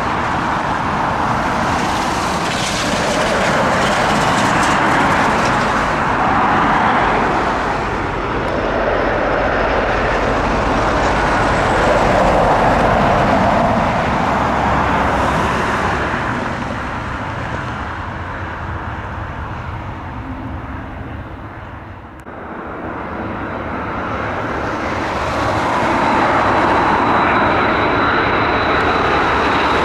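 Jet airliner engines running loud as an aircraft moves past on the runway, with a dense rushing noise that swells and ebbs. It dips about three quarters of the way through, then builds again with a thin high whine.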